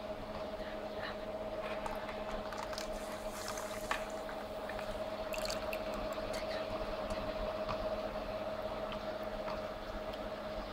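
Slush machine dispensing slush into a plastic cup: wet squishing and crackling as the icy slush falls in, over the machine's steady hum.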